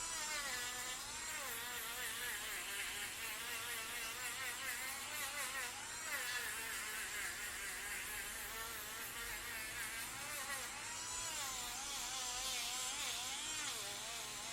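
Electric manicure/pedicure nail drill running, its small motor giving a high buzzing whine whose pitch keeps wavering up and down.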